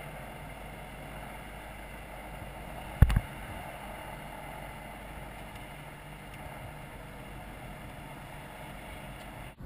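Steady aircraft engine noise, with one short, heavy thump about three seconds in.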